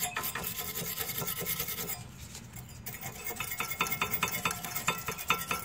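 Wire brush scrubbing rust and grime off the upper and lower pad abutments of a rear brake caliper bracket in quick back-and-forth strokes. After a short pause about two seconds in, the brushing picks up again, and each stroke carries a brief metallic ring.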